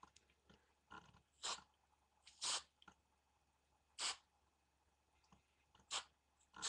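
Aerosol spray-paint can sprayed in short hissing bursts, about six in all, with small clicks between them.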